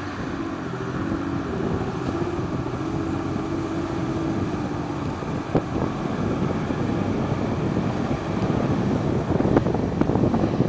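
Alvis Stalwart 6x6 amphibious truck's engine running steadily under load as the truck drives through deep water and mud, its wheels churning the water, louder and rougher with irregular splashes over the second half. Wind on the microphone.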